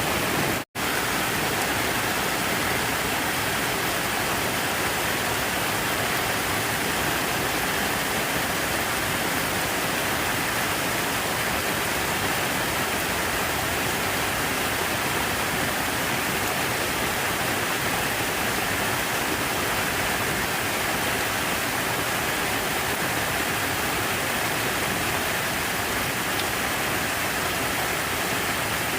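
Steady rushing of falling water, an even wash of noise with no change in level. It cuts out completely for an instant under a second in, then carries on as before.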